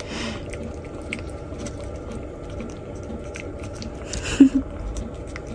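A cat licking a liquid treat from a squeeze tube held in a hand: a run of quick, wet tongue clicks and smacks. A brief louder sound comes about four seconds in.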